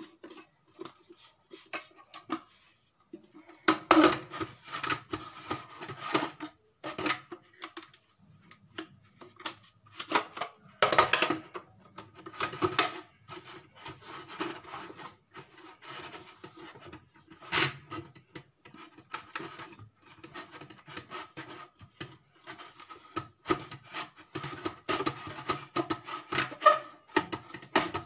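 A cloth rubbing and wiping the plastic parts of an electric juicer in uneven scrubbing strokes, with sharp plastic clacks and knocks as the pieces are handled and fitted back together.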